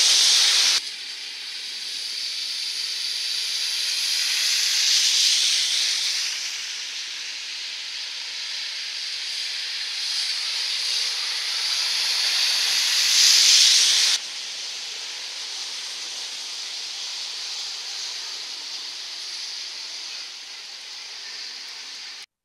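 Heavy rain hissing steadily, with the tyres of passing cars swooshing through standing water on the road. The noise swells about five seconds in and again near thirteen seconds, drops abruptly twice, and cuts off just before the end.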